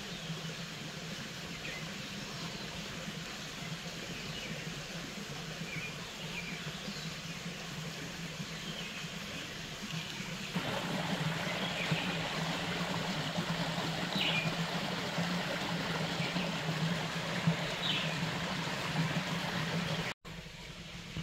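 Outdoor ambience: a steady hiss with a low hum, and short high bird chirps every few seconds. The background grows louder about halfway through and drops out for an instant near the end.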